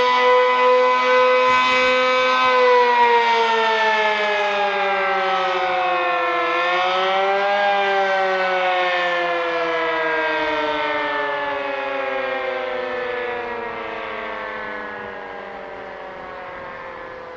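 Sentry 15V2T-B outdoor warning siren winding down at the end of its attack signal. The steady wail holds for a couple of seconds, then slides down in pitch, rises briefly about seven seconds in, and keeps falling as it fades. It runs below full strength, which the uploader puts down to batteries that need replacing.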